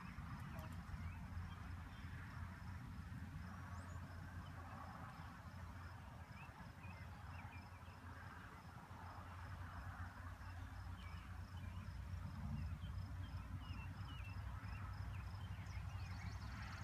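Faint outdoor ambience: a steady low rumble, with a small high chirp repeating evenly about three times a second and a few scattered faint bird-like chirps.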